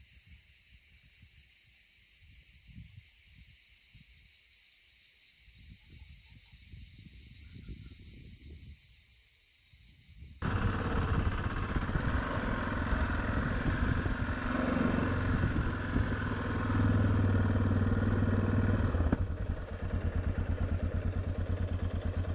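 Quiet, with only faint low rumbles, for about the first ten seconds; then, suddenly, a Yamaha Ténéré motorcycle engine running under way, with rapid, even firing pulses. The engine grows louder about two-thirds of the way through, then drops back a couple of seconds later.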